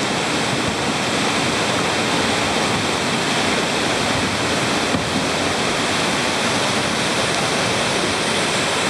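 Whitewater river rapids rushing: a steady, even noise of fast, churning water.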